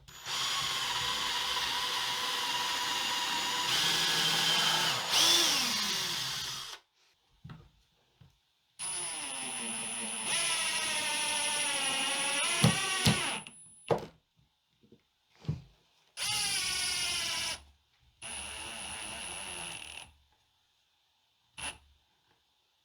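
Power drill running in four bursts, two long and two short, its motor pitch shifting and sagging as it meets load, the way a drill does when driving screws into wood.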